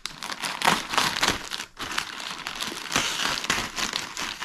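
Plastic poly mailer bag crinkling and crackling irregularly as it is cut open with scissors and pulled apart by hand, with a brief lull just under two seconds in.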